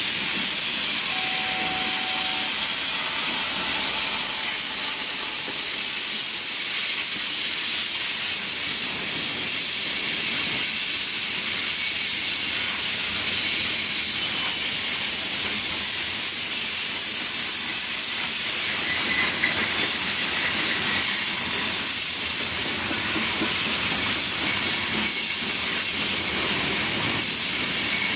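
Freight train rolling past close by: diesel locomotives in mid-train and then covered hopper cars, making a steady rushing noise of wheels on rail with faint high wheel squeal over it.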